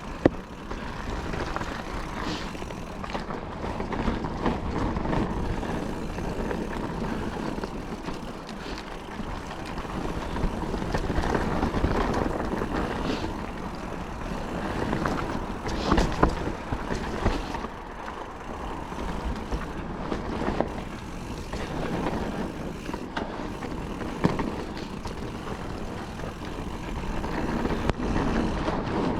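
Calibre Triple B mountain bike ridden fast down a dry, loose dirt trail. The tyres rumble and crunch over the ground in swells, with frequent knocks and rattles from the bike over bumps.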